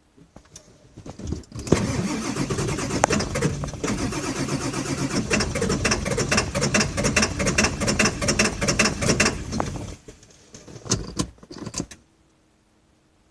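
2000 Ford F550's 7.3 L diesel being cranked on the starter, a loud rhythmic churning for about eight seconds that drops off, then a few short bursts before it stops about twelve seconds in, without the engine settling into an idle. This is the hard start the owner puts down to injectors that need replacing.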